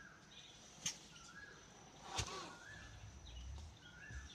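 Domestic turkey toms strutting: a sharp spit and, about a second later, a low drumming hum. In the background a small bird repeats a short rising-and-falling chirp about once a second.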